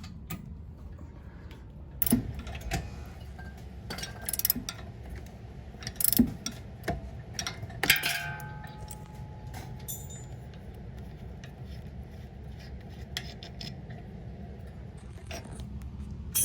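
Metal tools and brake parts clinking and knocking during removal of a brake caliper and its bolts, in a few separate knocks about two seconds apart, the one near the middle ringing briefly. A steady low hum lies under it.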